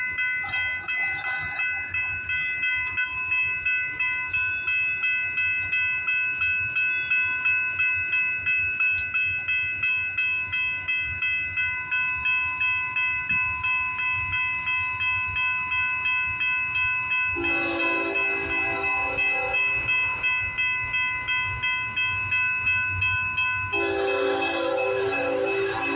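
Freight train of flatcars rolling past, its wheels clacking in a steady rhythm of about two to three beats a second under a steady high-pitched ringing. The locomotive's horn sounds twice: one blast of about two and a half seconds about two-thirds of the way in, and another starting near the end.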